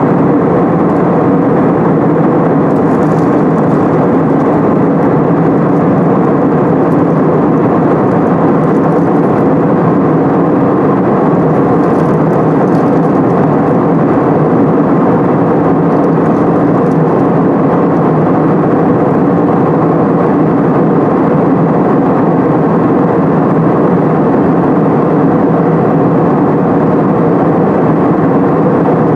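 Jet airliner cabin noise in cruise: a loud, steady rush of engines and airflow heard from inside the cabin.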